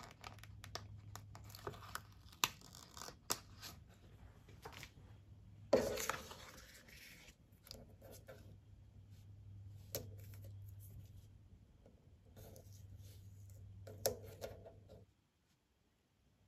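A sticker peeled off a plastic sticker sheet with tweezers and laid onto a paper planner tab: crinkling and peeling of the sheet, small ticks of the tweezers and paper being handled, with a louder rustle about six seconds in. A faint steady low hum runs underneath.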